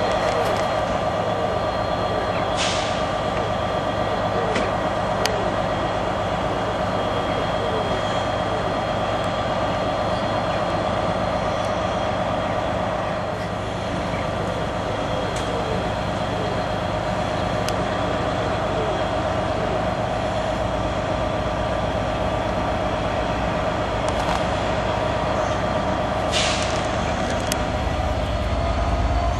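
Wrexham & Shropshire locomotive-hauled train, a Class 67 diesel with Mk3 coaches and a driving van trailer, running at the platform. It gives a steady mechanical hum with several constant whining tones. Two short hisses of air come about 3 s in and again near the end, and the low rumble grows louder in the last couple of seconds.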